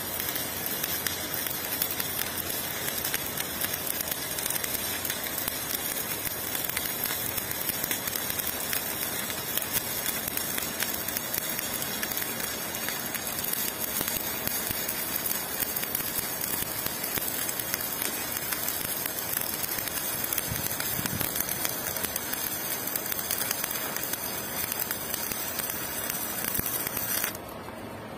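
Stick-welding arc burning on a steel pipe joint: a steady, dense crackling sizzle that cuts off suddenly near the end as the arc is broken.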